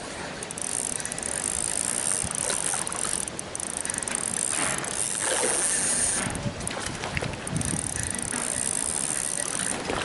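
Spinning reel being cranked to retrieve a lure, giving a steady high whir. It pauses for a moment about six seconds in, then winds again.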